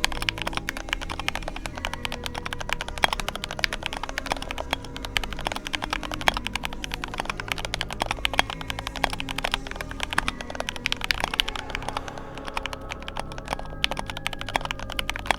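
GMMK Pro mechanical keyboard being typed on fast: a dense, continuous clatter of key clicks.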